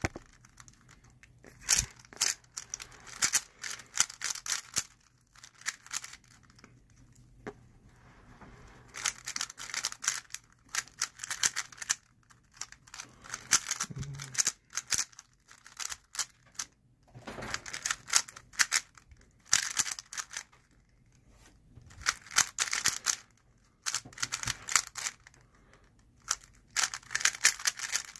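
Moyu Weilong GTS v2 3x3 speedcube being turned fast during a speed solve: bursts of rapid plastic clicking lasting one to three seconds, broken by short quiet pauses between bursts.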